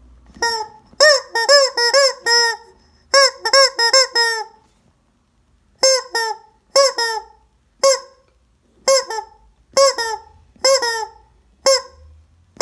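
Squeeze-toy rubber chicken squawking again and again: short honking squeals, each bending up and then down in pitch. They come in quick runs of two to five, with a pause of about a second and a half near the middle.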